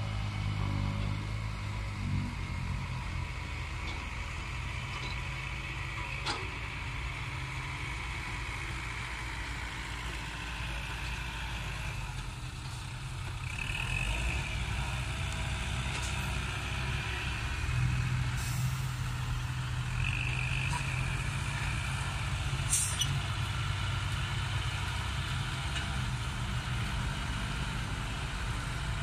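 Diesel engines of six-wheel dump trucks running as they drive slowly past over a dirt track, getting louder about halfway through. Two short air-brake hisses, about halfway through and again about two-thirds in.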